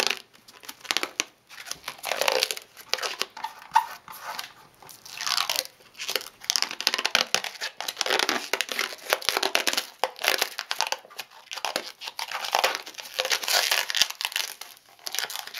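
Plastidip rubber coating being peeled by hand off a plastic dirt-bike front fender: irregular crackling, tearing sounds as the rubbery film lifts away in strips.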